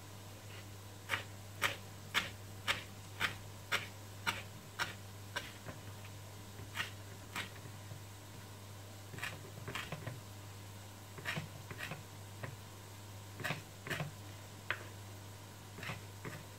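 Kitchen knife chopping fresh parsley on a wooden cutting board: a run of even knocks about two a second, then slower, irregular chops in small clusters.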